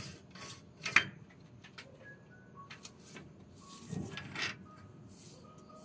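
Curtain fabric rustling and swishing in short bursts as it is handled and hung on the rod, with a sharp click about a second in and a few short, faint squeaks.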